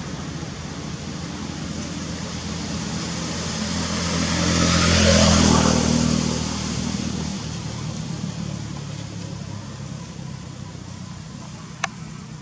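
A motor vehicle passing by: its engine and road noise grow louder, peak about five seconds in, then fade away. A single sharp click near the end.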